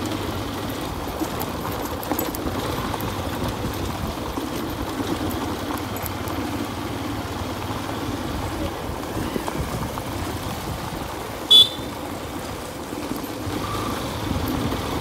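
Motorcycle running steadily at low speed over a gravel dirt road, with engine hum and tyre noise. About two-thirds of the way through comes a single short, loud horn toot.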